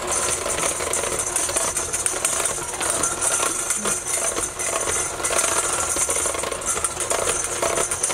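Electric hand mixer running steadily, its beaters whirring through a cream cheese and vanilla mixture and knocking against the sides of a stainless steel bowl.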